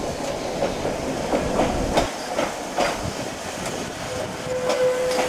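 Snaefell Mountain Railway electric tramcar No. 5 rolling past over trackwork, its wheels rumbling and clicking over rail joints and crossings at uneven intervals, with a steady tone coming in near the end.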